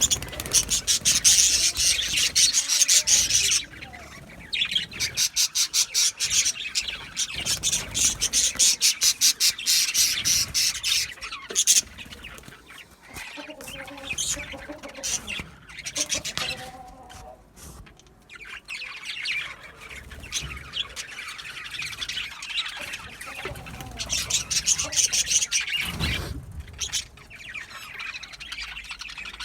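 Several pet budgerigars chattering and chirping rapidly, in loud stretches with quieter chatter between; the loudest bursts come at the start, again from about five to eleven seconds in, and once more near the end.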